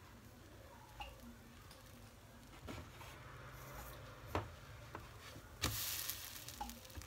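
Red silicone spatula tapping and scraping under a pancake in a non-stick frying pan. About two-thirds in, the pancake is flipped and slaps down in the pan with a brief hiss.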